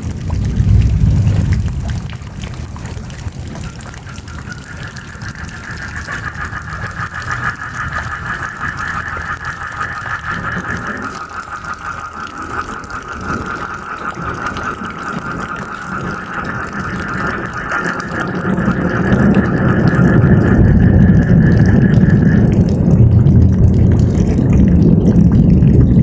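Steady rain hiss with a chorus of frogs calling in a pulsing, mid-pitched band that comes in a few seconds in and drops out near the end. Low thunder rumbles briefly at the start, then builds again about two-thirds of the way through and stays loud to the end.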